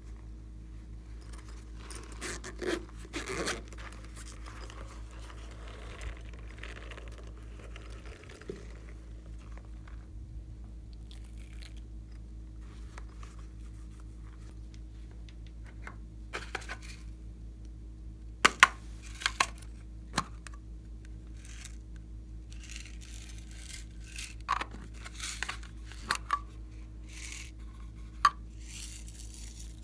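Small plastic containers being handled and opened, with scattered sharp clicks and taps; the loudest come about two-thirds of the way through. Near the end, sequins rattle in a small plastic box as they are shaken out. A steady low hum runs underneath.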